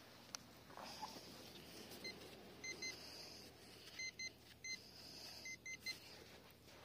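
Garrett metal detector giving short, high beeps in twos and threes as its coil sweeps back and forth over a buried target. The detectorist takes it for a good signal that could be a coin.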